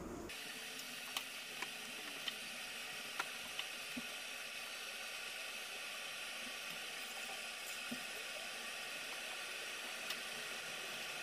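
A steady hiss with a few faint, scattered clicks and taps as a gloved hand wipes a stainless steel cooker hood with a cloth.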